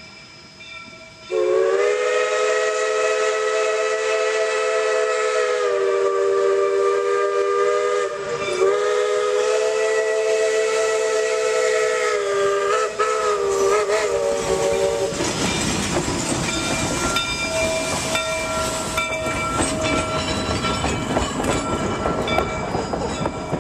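Steam locomotive's Ashton 6-inch three-chime whistle blowing one long blast for the crossing, wavering briefly a couple of times. Then, about fifteen seconds in, the engine passing close by with steam hissing and wheels clattering over the rails, fading as it moves away.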